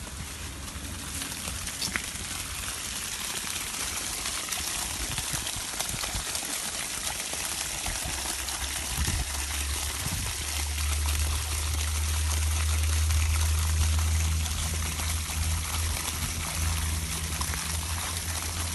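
Water trickling and flowing steadily, with a low rumble coming in about halfway through.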